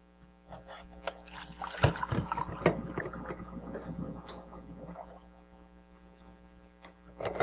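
Kitchen handling sounds: clatter and water sloshing for a few seconds, loudest about two seconds in, then quieter. A single sharp knock comes near the end.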